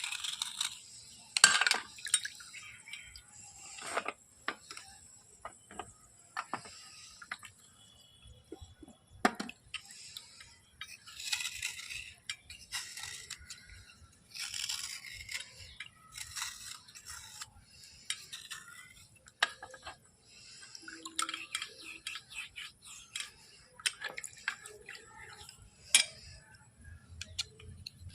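Irregular scraping strokes with sharp clicks and light clinks, a tool working over wet bars during cleaning, with occasional water drips.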